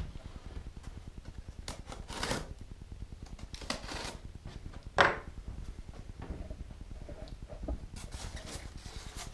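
Packaging being handled while unboxing a model: a few short scrapes and rustles, the loudest about five seconds in.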